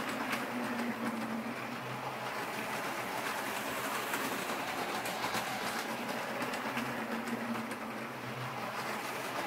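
Freshly serviced Marx 99 Rock Island E7 toy diesel locomotive with its B unit running on O gauge three-rail track: the steady whir of its electric motor and gears and the clatter of its wheels on the rails. The hum rises and falls as the train circles nearer and farther.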